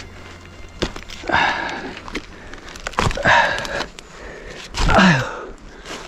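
A hiker's heavy breathing, three loud breaths a second or two apart, with footsteps and sharp clicks from the forest floor as he walks downhill.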